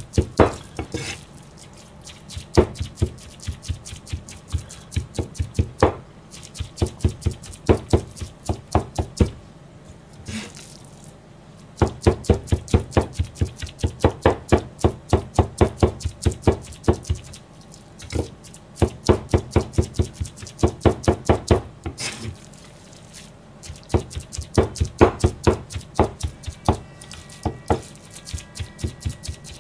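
Chinese cleaver chopping minced pork and greens into gyoza filling on a plastic cutting board: rapid knocks of the blade, about four or five a second, in runs broken by short pauses.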